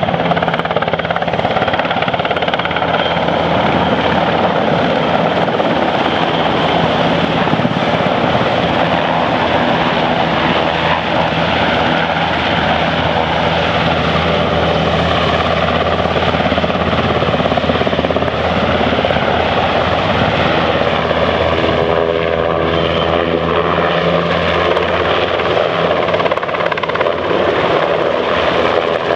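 NH90 military helicopter in flight, its rotors and turbine engines making a loud, steady noise. About three quarters of the way through, the tone wavers and sweeps as the helicopter's position changes.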